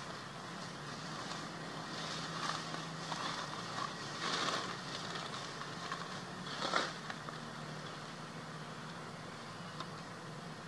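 Steady low hum of a distant engine under outdoor ambient hiss, with a couple of brief soft rustles about four and a half and seven seconds in.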